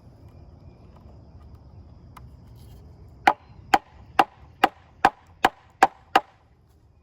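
A run of eight sharp, evenly spaced knocks, about two a second, each with a short ringing tail, starting about three seconds in.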